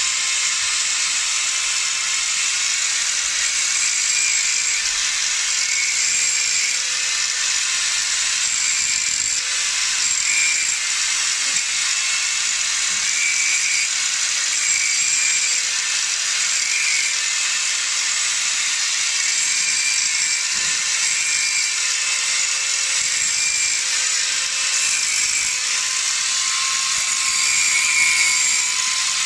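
Small electric angle grinder running steadily with a high whine as its grinding disc works on the cutters of a Stihl chainsaw chain, sharpening them. It gets a little louder near the end as the disc bites into the steel and throws sparks.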